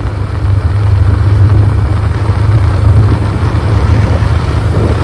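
Motorcycle running steadily while being ridden, with wind rushing on the microphone.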